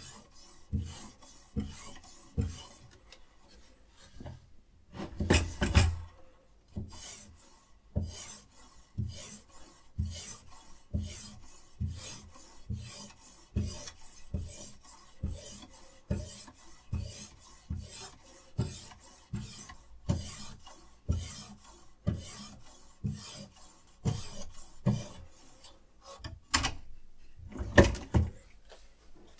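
Abrasive sharpening stone drawn in repeated strokes along a knife edge on a guided sharpener, a rasping scrape about once every second, with a couple of louder strokes partway through and near the end.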